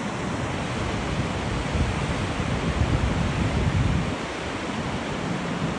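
Rushing water of Bow Falls, a steady roar, with wind buffeting the microphone in low gusts through the middle.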